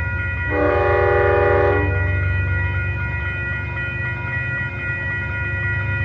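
Approaching train's horn sounds one blast of about a second and a half, a chord of several notes, beginning about half a second in. Beneath it run a low rumble from the train and the steady ringing of the grade-crossing warning bell.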